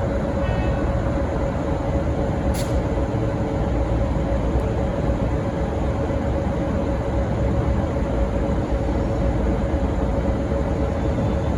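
V/Line N class diesel locomotive running steadily: a low rumble with a constant hum.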